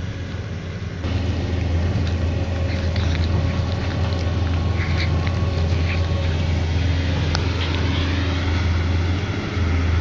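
Steady low engine drone of a dredging boat working on the river, stepping up in level about a second in, with a tone rising in pitch late on. Faint crunching and clicking of a cat chewing fish scraps close by.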